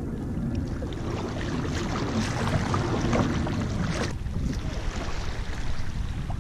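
Kayak paddle strokes splashing in choppy water, with wind buffeting the microphone. The sound changes abruptly about four seconds in.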